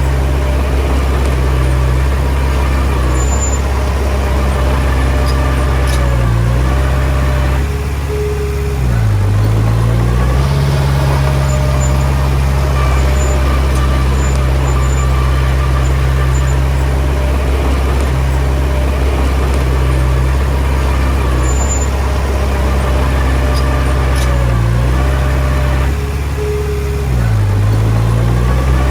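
Komatsu D20P bulldozer's diesel engine running steadily. Its engine speed dips and recovers twice, once about a third of the way in and again near the end.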